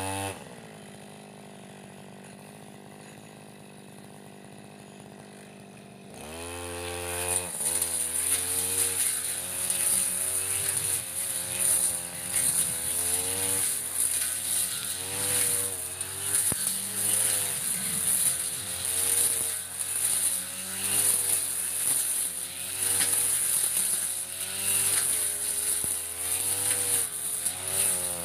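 Backpack brush cutter engine dropping to idle and idling steadily for about six seconds. It is then revved up and runs with the throttle rising and falling again and again as the blade cuts through thick grass.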